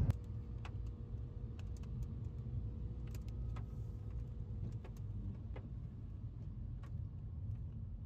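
Inside a moving car: a steady low road and engine rumble, with light irregular ticks and taps scattered through it.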